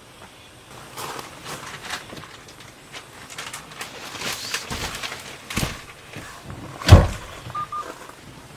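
Handling noises: a run of short clicks, rustles and knocks, with one heavy thump about seven seconds in.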